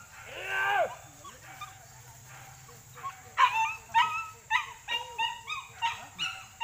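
Hunting dogs yelping while chasing wild boar. A long call rises and falls in pitch near the start, then from about halfway comes a quick run of high yelping barks, roughly two a second.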